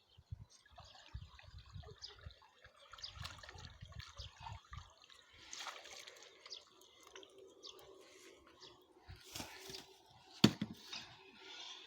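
Water of a small brook trickling and splashing in small irregular drips, with low rumbling thumps in the first half and one sharp knock near the end.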